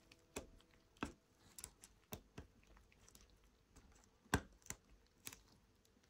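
Sparse small clicks and taps, about eight in a few seconds, the loudest a little past the middle: the plastic cover and wireless charging coil of a Huawei P30 Pro being pressed into place by hand.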